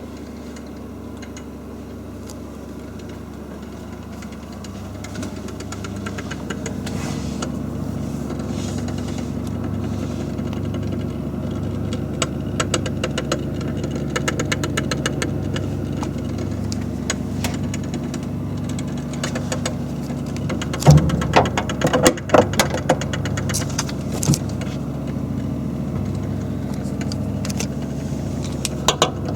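Refrigerator running with a steady hum and a fast ticking from its defrost timer, with a few louder clicks and knocks about two-thirds of the way through. The ticking is the fault: a defrost timer relay that needs cleaning and lubrication.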